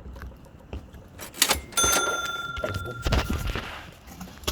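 A knock, then a bright metallic ring that fades out over about two seconds, with some rustling handling noise around it.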